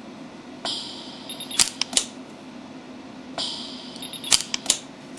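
Orion PA230 micro pulse arc welder firing as fill wire is welded into a hole in a mold die insert: twice, a short hiss followed about a second later by three sharp snaps of the arc pulses. A low steady hum runs underneath.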